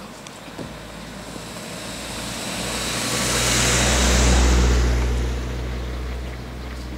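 A car driving past on a slushy, snow-covered road: engine hum and tyre hiss swell to a peak about four seconds in, then fade away.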